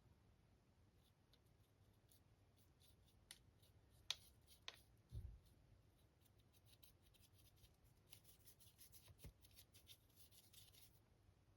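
Near silence, broken by faint small handling noises: scattered light clicks, two sharper clicks about four seconds in, a soft thump just after, and a patch of faint light scraping or rustling near the end.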